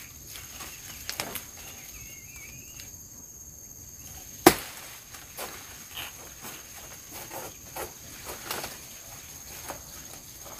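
Dry banana leaves rustling and crackling as a banana plant is pulled at to get a ripe bunch down, with one sharp crack about four and a half seconds in. A steady high insect buzz runs underneath.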